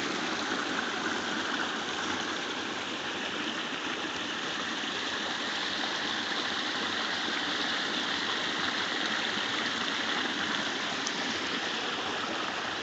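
Small waterfall and stream water rushing steadily.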